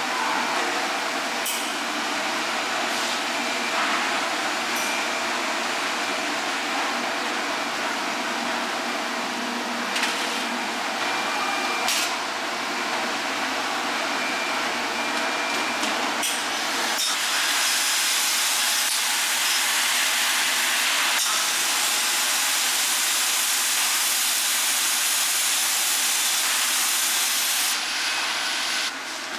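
Commercial stainless steam cabinet hissing steadily as steam is fed in to steam kamaboko, over a low machine hum. The hiss grows louder about halfway through as the chamber fills and steam escapes around the door. A few sharp metal clicks from the door and racks come in the first half.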